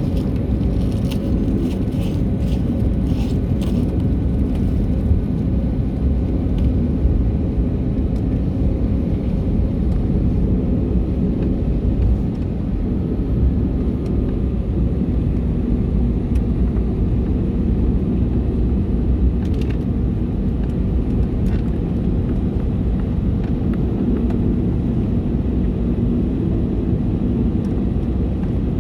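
Steady low rumble heard inside the cabin of an Airbus A320neo airliner, from its engines and the aircraft moving on the ground, with a few faint clicks in the first few seconds.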